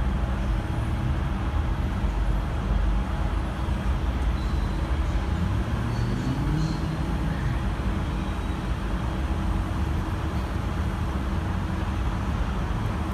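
Diesel engine of a V/Line N class locomotive running with a steady deep drone; about five seconds in its pitch rises over a couple of seconds as the engine revs up.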